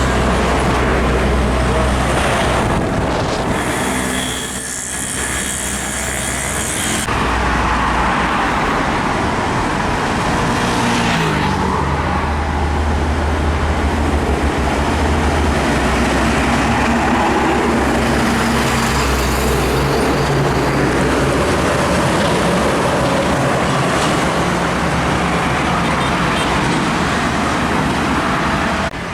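Road traffic with large trucks passing, their diesel engines running; the engine sound shifts as vehicles come and go, with a brief dip in loudness about four to five seconds in.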